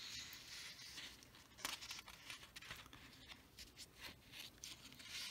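Faint rustling of a paper worksheet being slid and shifted on a desk, with a few light clicks and taps.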